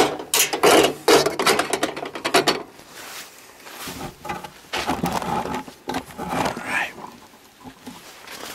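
Camera handling noise: the camera rubs and bumps against jacket fabric as it is moved, giving a rapid run of rustles and clicks for the first couple of seconds, then quieter scattered rustles and knocks.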